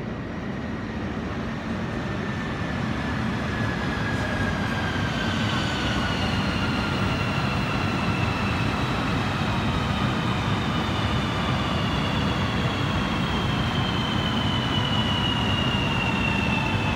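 CRH high-speed electric train running alongside a station platform: a steady rumble of wheels on rail that grows louder, with the motors' high whine gliding slowly down in pitch as the train slows.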